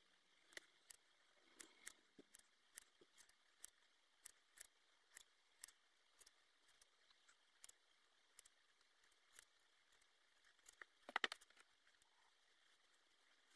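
Hair-cutting scissors snipping into a held-up section of hair, cutting in to thin it out. Faint, sharp snips come about two a second, then a quick cluster of louder clicks about eleven seconds in.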